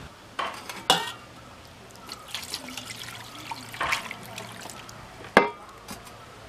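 Water splashing and sloshing in a stainless-steel bowl as a raw mutton leg is rubbed and washed by hand. There are a few short sharp splashes or knocks against the bowl; the loudest comes about a second in and another near the end.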